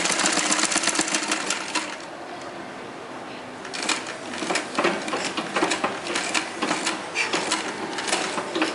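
Sewing machine stitching a seam with its fast, even clatter, stopping for about two seconds near the middle and then running again.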